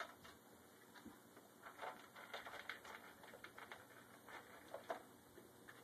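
Faint, irregular clicks and crunches of a German shepherd eating.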